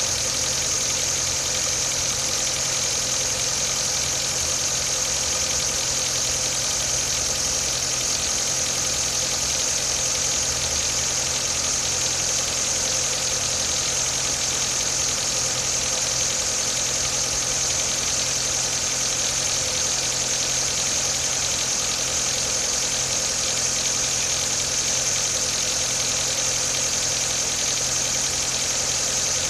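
2017 Nissan Micra SV's 1.6-litre four-cylinder engine running steadily at idle, with the knocking/tapping that the owner says began before 1200 km and takes for an engine fault.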